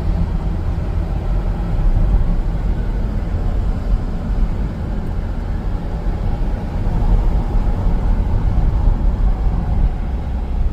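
Steady low rumble of engine and road noise heard inside a car's cabin while driving.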